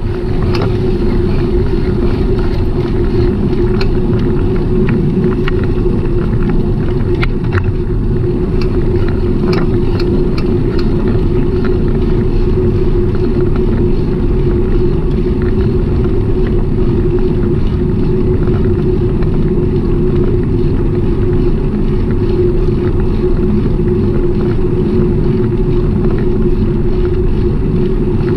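Riding noise from a moving bicycle: a loud, steady low rumble of wind and road with a constant hum, and a few light clicks in the first ten seconds.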